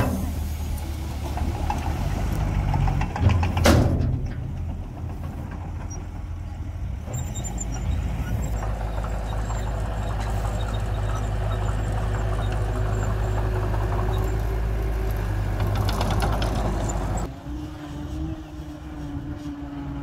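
Heavy diesel engines running at a dirt fill: a dump truck tipping its load, then a bulldozer pushing soil, with one sharp bang about four seconds in. Near the end the sound drops to a quieter loaded dump truck driving away.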